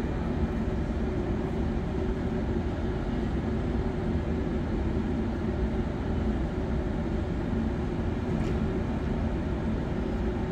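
Steady low rumble and hum of a railway station's ambience, with no single event standing out.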